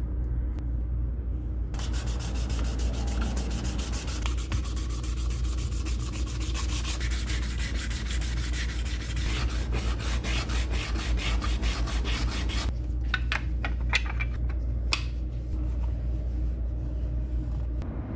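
Sanding by hand, sandpaper rubbed back and forth over a part in quick, regular strokes; the strokes start about two seconds in and thin out to a few scattered rubs after about twelve seconds, over a steady low hum.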